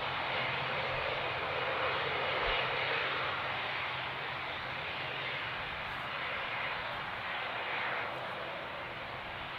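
Twin turboprop engines of an ATR 72 running at taxi power: a steady propeller drone with a low hum under a rushing engine noise, a little louder about two to three seconds in and easing slightly near the end.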